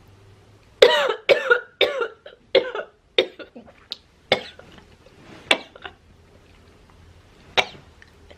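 A woman coughing hard in a fit set off by a very big inhale of cigarette smoke: about nine coughs, close together at first, then thinning out, with a last one near the end.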